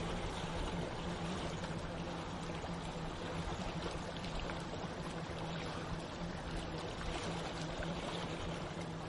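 Steady rushing water with a low, steady hum underneath.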